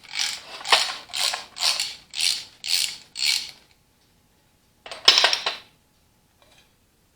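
Ratchet wrench being cranked to loosen the bolts of a tractor's brake inspection cover, about seven ratcheting strokes at about two a second, then a sharp click and a short rasp about five seconds in.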